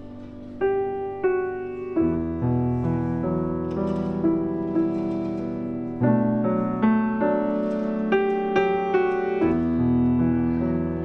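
Grand piano playing a slow piece: melody notes struck over held chords, with low bass notes coming in about two seconds in.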